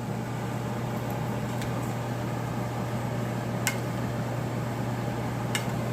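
Chopped vegetables (eggplant, zucchini, bell peppers) sizzling in a frying pan over a steady low hum, with three sharp pops or clicks about two seconds apart.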